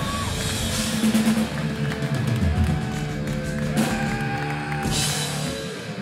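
Thrash metal band playing live: distorted electric guitar chords held over a drum kit, with cymbal crashes about a second in, near four seconds and near five seconds.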